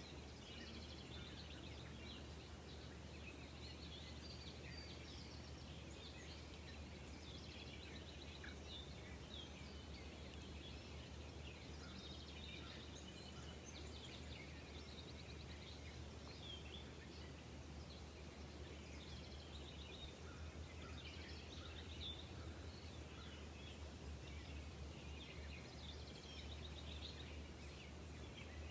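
Faint outdoor ambience of many small songbirds chirping and trilling in the background, over a steady low hum.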